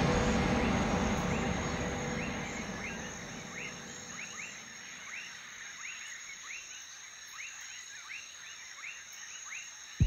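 Tropical rainforest ambience: a steady high insect drone with a short hooked chirping call repeated about twice a second, starting a couple of seconds in. Background music fades out over the first few seconds.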